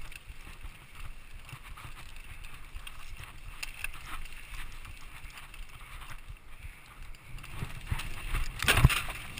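Mountain bike rolling fast down rough dirt singletrack: tyres rumbling over the ground and the bike rattling with many small knocks, with a louder rush of noise near the end.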